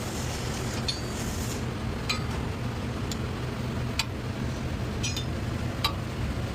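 Tools clinking against metal a handful of times, sharp and scattered, over a steady low hum.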